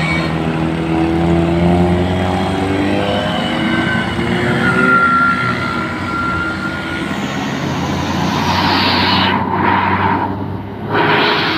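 Bus driving by with its engine running and sliding in pitch, while its telolet multi-tone air horn sounds held notes over it, one about four seconds in and another near the end.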